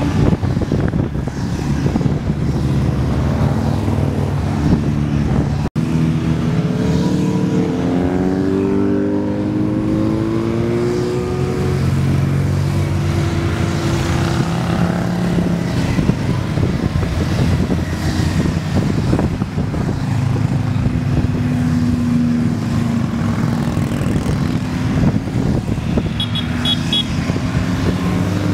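A procession of motorcycles riding past one after another, a dense mix of engines running with their notes rising and falling as bikes go by. The sound cuts out for an instant about six seconds in.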